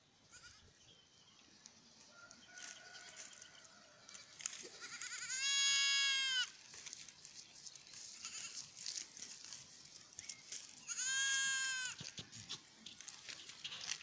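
Miniature goats bleating: two loud, high-pitched bleats about a second long, one near the middle and one near the end, with fainter bleats from the herd and scattered small clicks and crackles between them.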